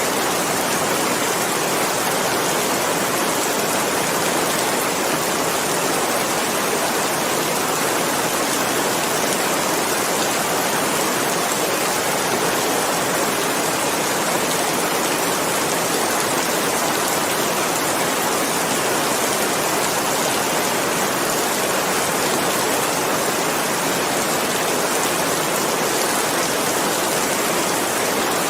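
Steady heavy rain, an even, unbroken hiss of falling water.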